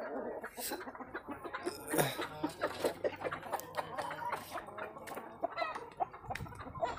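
A flock of free-range desi hens and roosters clucking, many short calls overlapping, loudest about two seconds in, with scattered short clicks between them.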